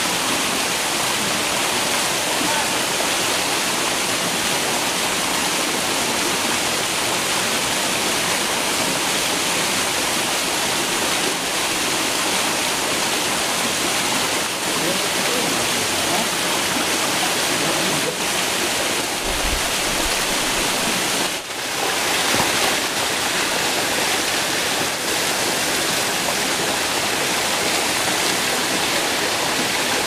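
Steady rushing of a small waterfall and the shallow stream running below it, dipping briefly about two-thirds of the way through.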